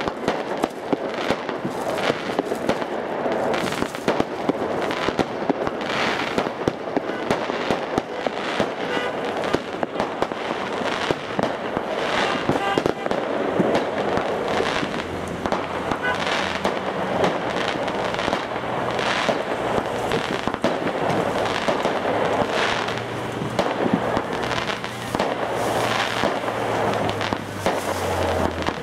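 New Year's fireworks going off all around: a dense, unbroken run of bangs and crackles, several a second. From about halfway, a low steady engine hum from passing cars joins in.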